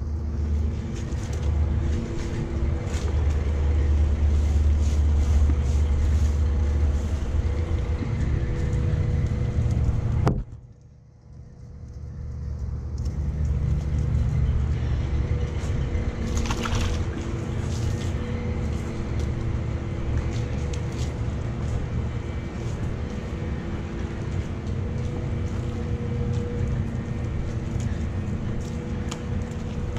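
An engine running steadily, a low drone with a few steady tones, which drops away abruptly about ten seconds in and builds back up over the next two seconds.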